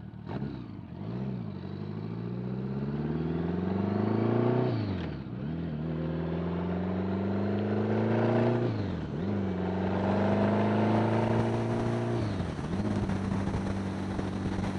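1975 Honda Gold Wing's flat-four engine pulling up through the gears: its pitch climbs, drops abruptly at each of three upshifts, then runs steady. Wind rushes across a helmet microphone.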